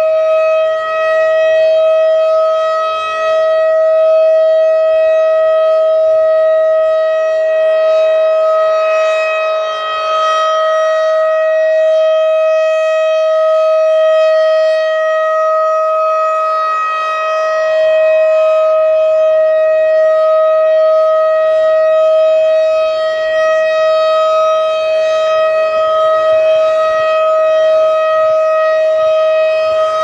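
Federal Signal 2001-DC rotating siren sounding a steady alert tone, its loudness swelling and dipping gently as the horn turns. The pitch sits very low, which the recordist puts down to the 0°F cold.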